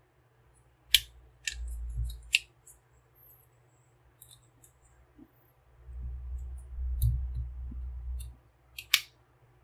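Hard plastic toy parts clicking and snapping as a red plastic weapon accessory for a Transformers figure is folded and adjusted by hand: a few sharp clicks, with low handling rumble in two stretches between them.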